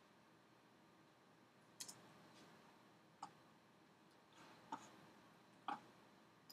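Near silence with about five faint computer clicks from a mouse and keyboard, a quick double click about two seconds in.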